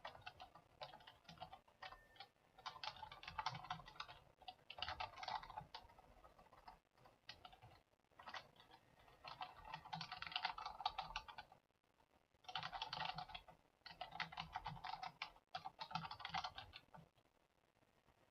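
Faint typing on a computer keyboard in several quick bursts of keystrokes with short pauses between them, stopping about a second before the end.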